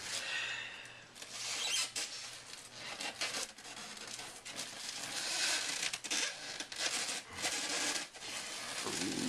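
Plastic wrapping rustling and crinkling as a wrapped statue is pulled and worked loose from a tight styrofoam packing insert, with short scrapes and clicks of plastic rubbing on the foam.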